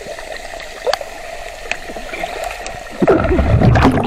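Swimming-pool water sloshing and gurgling steadily, with a loud, deep splash close by about three seconds in.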